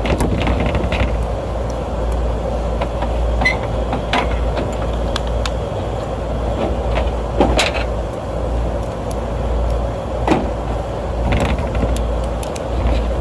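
Scattered metal clicks and knocks of bolts and tools being fitted back onto a rooftop condenser fan assembly, over a steady low rumble.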